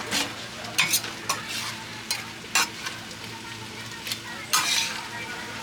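Horumon (pork and beef organ meat) sizzling on a hot steel griddle, stirred and scraped over several times, with a handful of sharp scraping strokes over the steady hiss.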